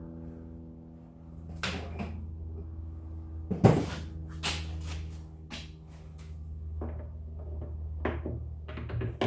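Several sharp metal knocks and clanks, the loudest a little under four seconds in, as machining tooling is handled and taken off the machine, over a steady electrical hum.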